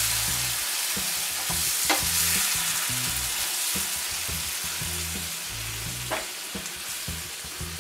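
Hot water poured into a pan of frying ground green pigeon pea mixture, hissing and sizzling as a wooden spoon stirs it with soft knocks. The sizzle slowly dies down as the water goes in.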